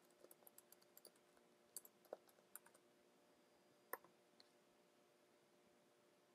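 Faint keystrokes on a computer keyboard over the first few seconds, then a single louder mouse click about four seconds in.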